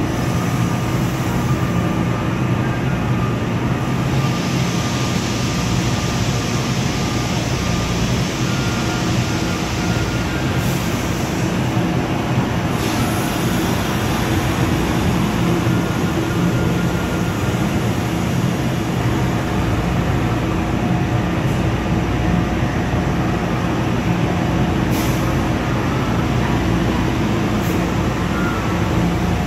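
NJ Transit double-deck MultiLevel passenger coaches rolling past along the platform track: a steady rumble of wheels on rail with a constant hum of several steady tones. A higher hiss joins it from about four seconds in and lasts for several seconds.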